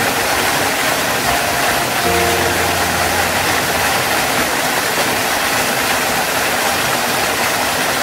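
Steady rush of a waterfall, joined by sustained low notes of background music about two seconds in.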